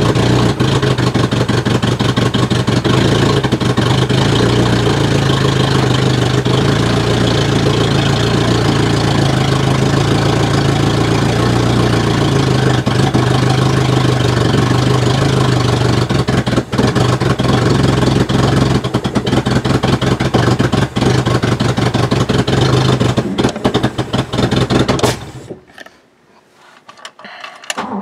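Ford Cortina MK3's carburetted four-cylinder engine idling steadily at about 1,000 rpm. Near the end the sound suddenly drops away for about two seconds, then comes back.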